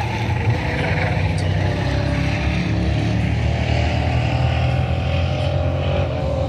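Several stock car engines running at race speed around an oval track, a steady loud drone whose pitch slowly rises and falls as the cars go through the turns.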